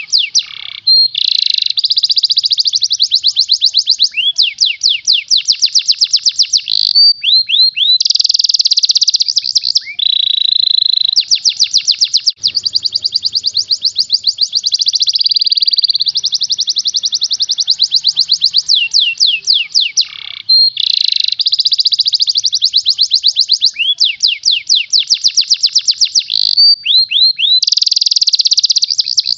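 Domestic canary singing a long, fast song of rapid trills, the notes packed tightly, with a few downward-sliding notes and short breaks between phrases.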